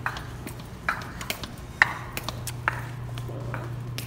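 Footsteps of boots on a hard hallway floor, sharp heel clicks about every half second that echo, over a steady low hum.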